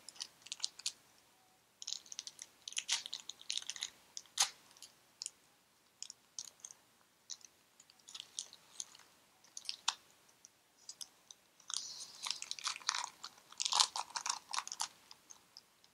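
Foil booster-pack wrapper of Pokémon trading cards being torn open and crinkled by hand: irregular crackling rustles, one spell a couple of seconds in and a longer one near the end.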